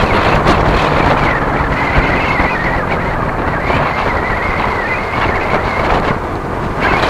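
Loud wind buffeting the microphone of a camera on a fast-moving road vehicle, over the rumble of tyres and engine on the road. A thin high whine holds steady for a few seconds in the middle.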